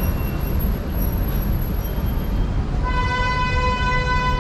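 Steady city-street traffic rumble, with a vehicle horn sounding one long, steady honk starting about three seconds in.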